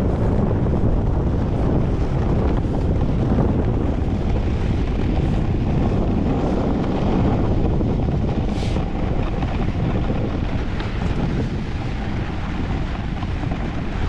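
Steady wind rush on the microphone with the rumble of a snowboard sliding fast over the piste snow. A brief sharper hiss comes about eight and a half seconds in.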